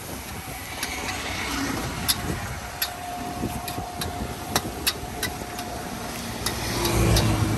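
Fried noodles sizzling in a wok, with irregular sharp metal clinks of a spatula against the pan. A motor vehicle's engine hum swells near the end.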